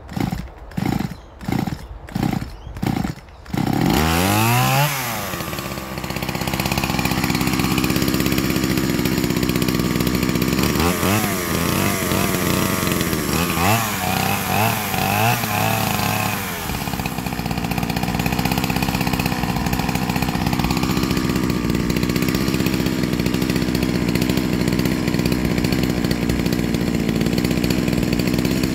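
Stihl MS170 two-stroke chainsaw with a freshly fitted big-bore kit, pull-started with several quick pulls on the starter cord. It catches about four seconds in and revs, then idles. Around eleven to sixteen seconds in it gives a run of short throttle blips, then keeps running steadily.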